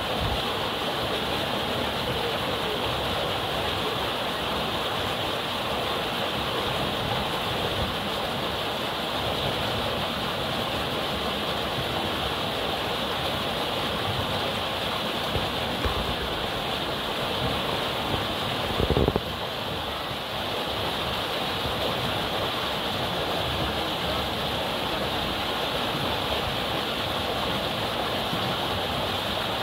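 Steady rushing of flowing river water, with one brief thump about two-thirds of the way through.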